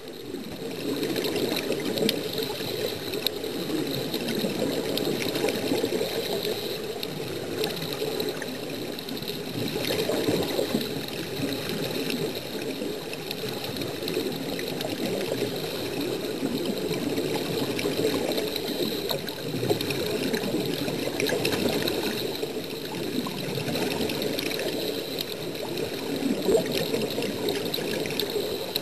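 Air bubbles gurgling underwater in a continuous stream, as from a diving helmet that is fed air from the surface.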